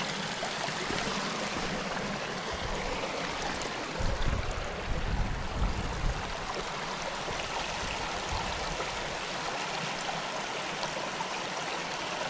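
Shallow mountain stream running and babbling over rocks: a steady rush of water. Between about four and six seconds in, a low rumble rises briefly over it.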